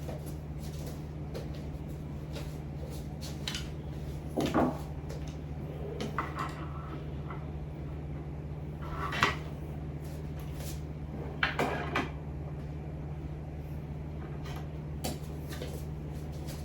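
Objects being handled and set down on a desk: a handful of light knocks and clatters at uneven intervals, over a steady low hum.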